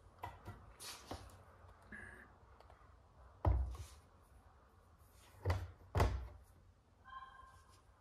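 Three dull thumps, about three and a half, five and a half and six seconds in, with lighter clicks and taps between them: handling noise as a tablet in its case is moved and adjusted on a table.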